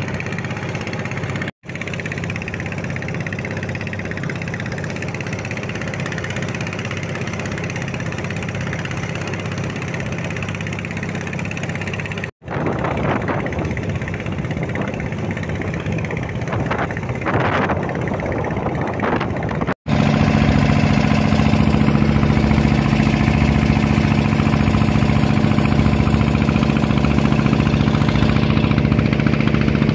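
Small fishing boat's engine running steadily under way, with the wash of water along the hull. The sound drops out briefly three times, and after the last break, about two-thirds of the way in, the engine is louder.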